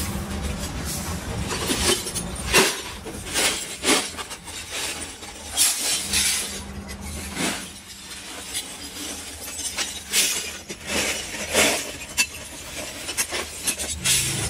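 Broken sheet glass clinking and crashing as it is shovelled into a metal wheelbarrow. There is an irregular crash of glass pieces every second or two, each with a short ringing tail.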